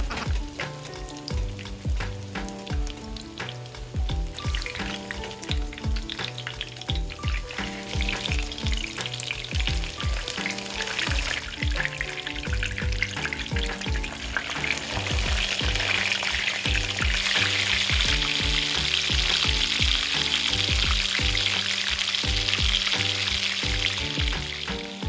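Food frying in hot oil, a sizzling hiss that grows much louder about halfway through, under background music with a steady beat.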